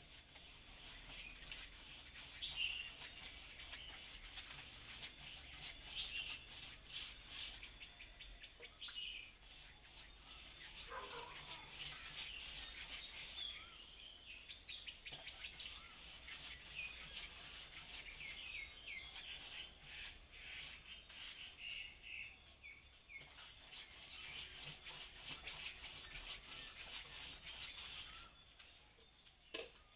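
Small songbirds chirping and twittering, faint, with short repeated calls throughout and a lower call about eleven seconds in. Light rustling and clicks in the background.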